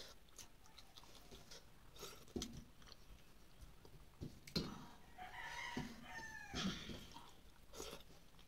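A rooster crowing once, about five seconds in, with a pitched call that glides down. Under it are soft clicks of fingers mixing rice and curry on a metal plate, and chewing.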